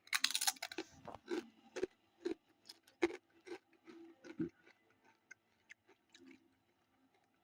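Doritos tortilla chips being bitten and chewed close to the microphone: a dense burst of crunching at the start, then irregular crunches every half second or so that grow fainter as the chewing goes on.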